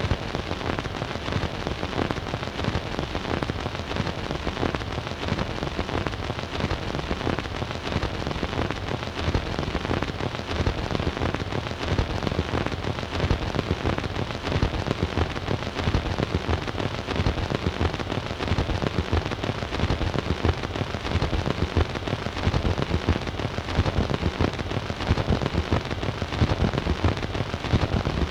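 Surface noise of an 8-inch 78 rpm record's lead-in groove under the stylus: a dense, steady crackle of pops and clicks over hiss, with no music.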